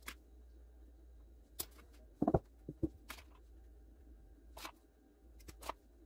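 Faint, scattered light taps and clicks of a spoon against an aluminium baking pan as cinnamon sugar is sprinkled and spread over cake batter. The loudest is a dull knock a little past two seconds in.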